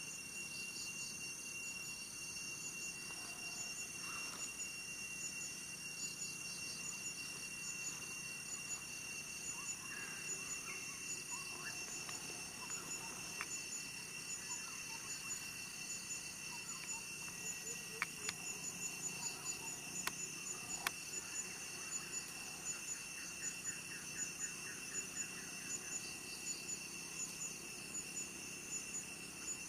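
Steady insect chorus of crickets or cicadas with pulsing high trills and a thin steady whine, with faint chicken clucks now and then. A few sharp clicks come about halfway through.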